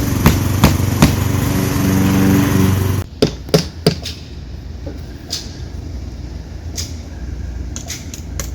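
A small engine runs steadily for about three seconds, with a few sharp knocks over it, then stops abruptly. After that come scattered single hammer blows, nails being driven into vinyl siding.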